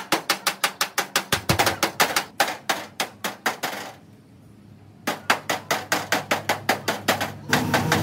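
Rapid, evenly spaced hammer blows, about five a second, likely hammering on the van's body metal. They pause for about a second midway, then resume and stop shortly before the end.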